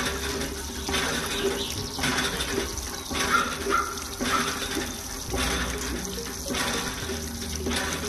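Water splashing from a miniature hand pump worked by hand, gushing in pulses about once a second with the lever strokes.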